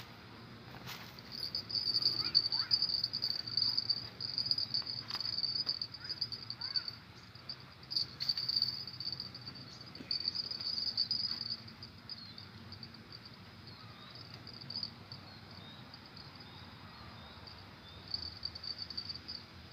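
Insects trilling in a high, continuous, rapidly pulsing tone. The trill is loud for the first half, drops back, and swells again near the end, with a few faint clicks early on.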